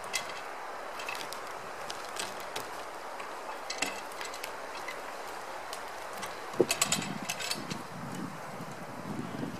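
Metal log-rolling hook clinking and biting into bark as logs are pried and rolled by hand, with scattered sharp clicks and a cluster of knocks about seven seconds in, followed by a few dull thuds of shifting logs.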